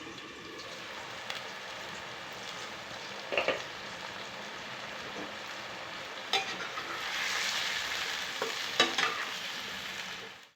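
Food sizzling in hot oil in a pan while being stirred, with a few sharp knocks of the spatula against the pan. The sizzle swells louder a little past the middle.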